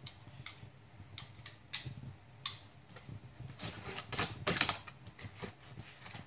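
Packing tape on a cardboard box being slit open with a small cutter: scattered clicks and scrapes, then a quicker run of louder scraping strokes about four seconds in.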